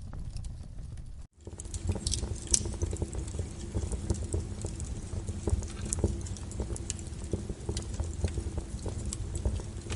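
Wood fire crackling and popping in a fireplace, with irregular sharp snaps over a low rumble of flame. The sound cuts out for an instant about a second in, then returns louder and busier.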